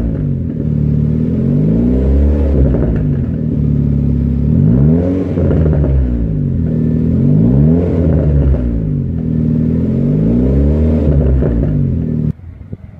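Opel Corsa C GSi's 1.8 16v four-cylinder engine being revved, rising and falling in pitch about every two and a half seconds, five times over. The engine sound drops away abruptly near the end.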